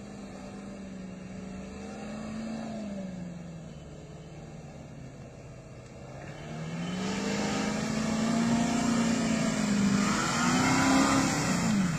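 Four-wheel-drive SUV engine working up a muddy track, the revs rising and easing off. About halfway through it gets louder and the engine pitch climbs, with a hiss of tyres in the mud, and the revs drop sharply near the end.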